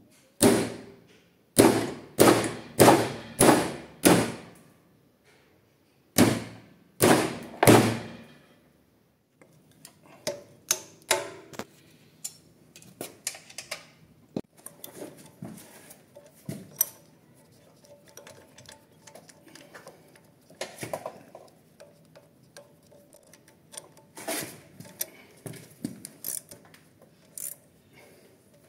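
A mallet striking a bent motorcycle gear shift lever clamped in a bench vise to straighten it: six loud blows in about four seconds, a short pause, then three more. After that, quieter scattered clicks and taps of metal parts and a spanner as the shift linkage is refitted.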